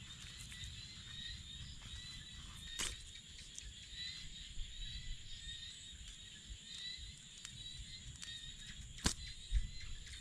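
Insects chirring steadily in open countryside over a low rumble, with a sharp click about three seconds in and another about nine seconds in.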